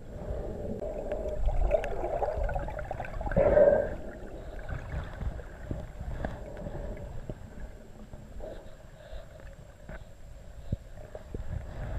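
Muffled underwater water noise picked up by a submerged GoPro: low rumbling and gurgling. A louder gurgling swell comes about three and a half seconds in, then a quieter stretch with a few faint ticks.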